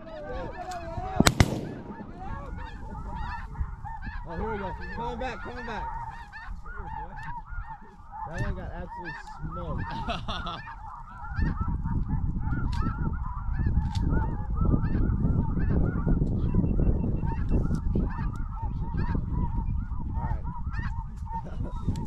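A flock of snow geese calling, with many short calls overlapping, and a single shotgun shot about a second in. A low rumble comes in about halfway through and stays.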